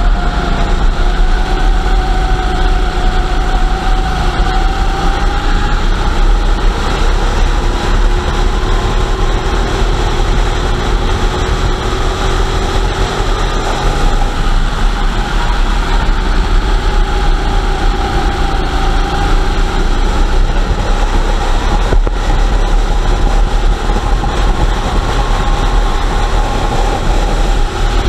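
Go-kart engine running at racing speed, its pitch slowly rising and falling as the revs change through the corners, over a steady low rumble.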